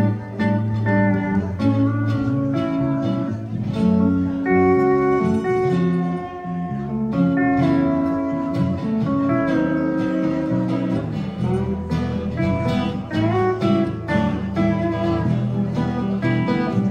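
Live band in an instrumental stretch: pedal steel guitar and plucked guitars over bass and drums, with the steel's notes gliding now and then.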